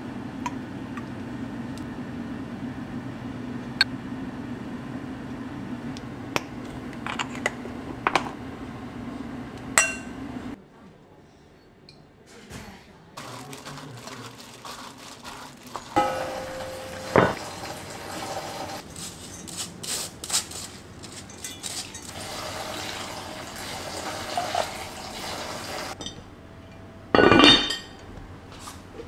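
Kitchen food-prep sounds: soy sauce and seasonings poured into a glass bowl of shredded pork, with clinks of glass and the meat being worked by hand. A low steady hum runs through the first ten seconds or so, and there is a heavy knock near the end.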